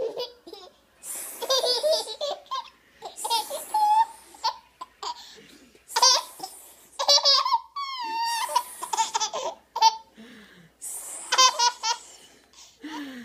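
A 13-month-old toddler laughing in repeated fits of quick pulsed laughs with gasps between them and a falling squeal about halfway through, set off by being nuzzled in the neck.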